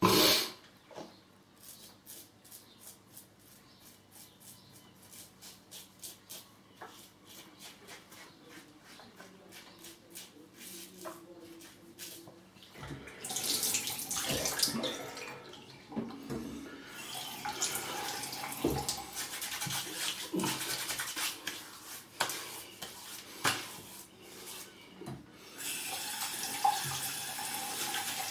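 Double-edge safety razor (Rex Supply Co. Ambassador) scraping through stubble in quick, short strokes. About halfway through, a tap starts running and water splashes as the face and razor are rinsed.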